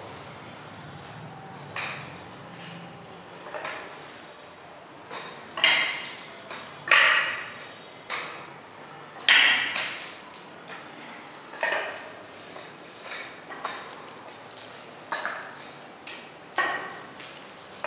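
Footsteps on a freshly roll-coated concrete floor, each step a sharp click with a short ring, one every second or two.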